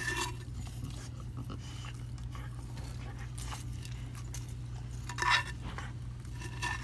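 Young Labrador retriever chewing on a tough plant-pot wick, with scattered small clicks and mouth sounds, and one louder burst from the dog about five seconds in.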